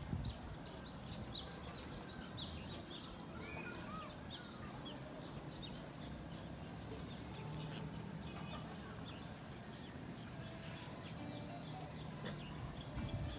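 Faint farmyard bird calls, mostly short clucks and chirps like chickens, scattered over a steady low background murmur.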